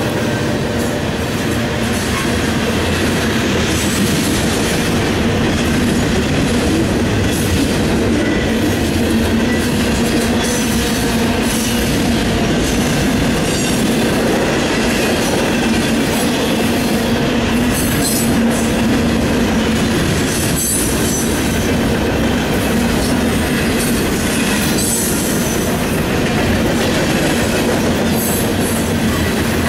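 Freight cars of a passing train rolling by at close range: a loud, steady rumble and clatter of steel wheels on the rails.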